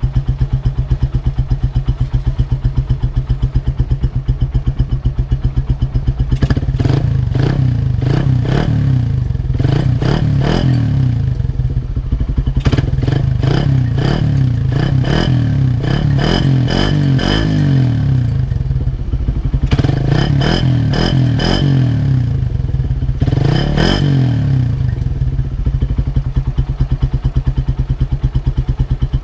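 Small single-cylinder four-stroke motorcycle idling through a stock Suzuki Raider 150 exhaust with its catalytic converter gutted out, giving an open, rattly exhaust note. After about six seconds the throttle is blipped in repeated quick revs, in several bursts, before it settles back to idle near the end.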